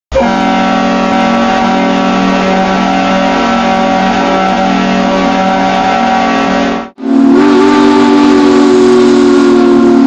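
Snowpiercer train whistle from the film, a long, steady, multi-note chord that cuts off suddenly about seven seconds in. It is followed at once by the TV series Snowpiercer's whistle, a lower chord held to the end.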